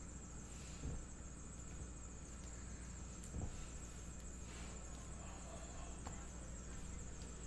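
Faint rustling and soft taps of trading cards and foil pack wrappers being handled, a few brief noises about a second in and again around three and a half and four and a half seconds in, over a steady low hum and a high-pitched hiss.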